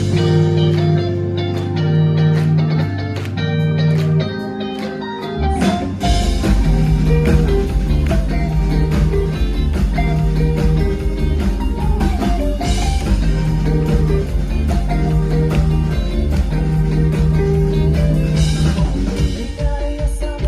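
A band playing live rock music. Held bass and guitar notes open it, and about six seconds in the drums and full band come in with a steady beat.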